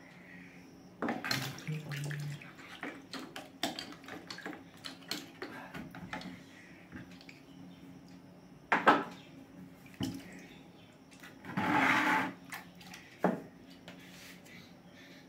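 Knife cutting a ripe, juicy mango into pieces, heard as a run of small wet clicks and squishes. Then scraps of mango are dropped into a plastic bucket with a sharp knock, followed by a brief rustle.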